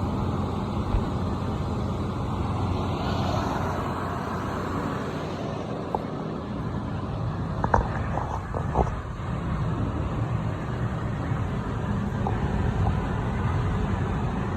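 Symphony Hi Flow 40 air cooler running, its fan giving a steady rush of air, with a few light clicks about halfway through.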